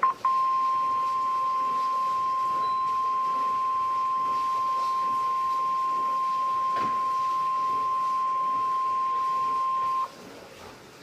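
NOAA Weather Radio warning alarm tone, the 1050 Hz alert: a single steady high-pitched beep held for about ten seconds, then cut off. It signals that a warning, here a severe thunderstorm warning, is about to be read.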